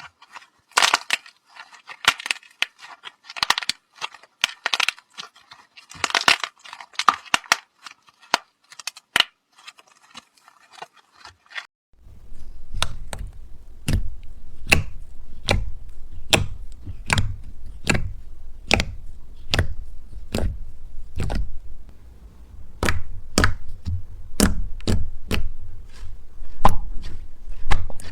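Irregular sharp cracks and crunches. About twelve seconds in, the sound changes to a run of sharp cracks, roughly two a second, over a low hum.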